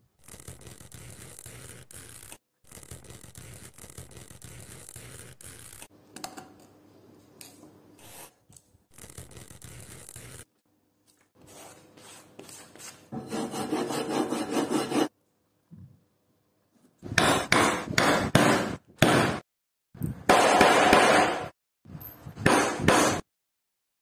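Hand tools working leather: a faint, steady scratching from a pointed marking tool pressed through a paper template, then a glass slicker rubbed back and forth over the leather's rough flesh side. The rubbing grows louder and comes in several short runs of strokes near the end.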